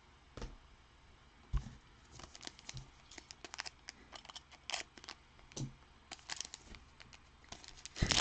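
Crinkling and tearing of a trading card pack's wrapper as it is handled and opened: a few soft knocks, then a scatter of short crackles that gets louder near the end.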